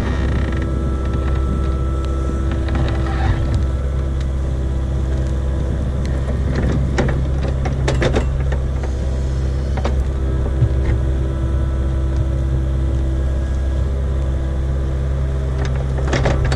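Kubota KX057-5 mini excavator's diesel engine running steadily, with scattered short knocks and clicks over it.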